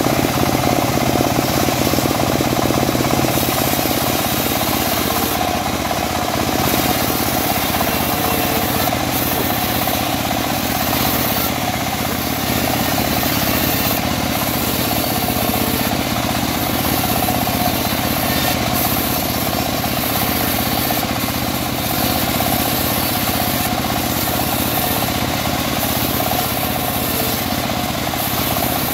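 Homemade bandsaw mill running steadily on its belt-drive engine while teak boards are fed through the blade and sawn lengthwise, a loud, even machine noise with a fast pulsing.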